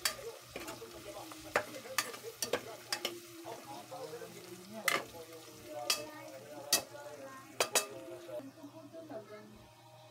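Metal spatula stirring ground meat and sliced sausage as they fry in an aluminium pot, a sizzle under sharp knocks and scrapes of the spatula against the pot every second or so. The stirring stops about two seconds before the end, leaving a quieter sizzle.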